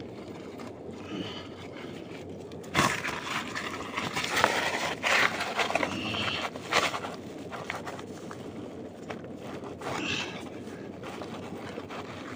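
Irregular scraping and crackling of digging and groping in a mud crab's burrow, loudest from about three seconds in for several seconds.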